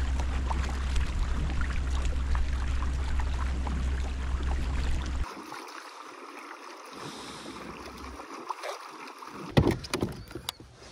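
Water splashing and lapping around a kayak. A heavy low rumble runs under it for the first five seconds and stops suddenly. A few sharp knocks come near the end.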